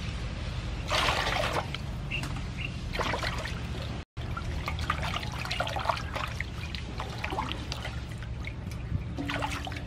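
Water sloshing, splashing and trickling in a metal basin as hands rinse a whole plucked chicken, with louder splashes about a second in and again around three seconds.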